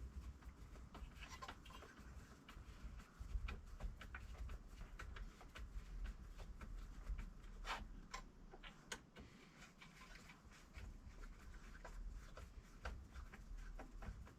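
Faint, irregular small clicks and taps of hand tools and small metal parts being handled on a workbench, over a low steady rumble.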